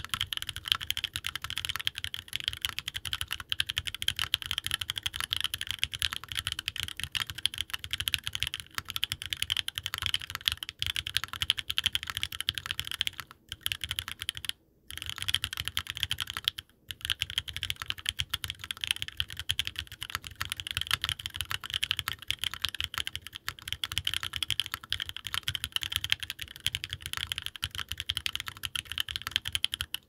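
Fast, continuous typing on a Voice65 65% mechanical keyboard fitted with stock, factory-lubed JWK Queen switches on 60 g springs in an aluminium plate, under GMK keycaps. The key clicks run almost unbroken, with a few brief pauses about halfway through.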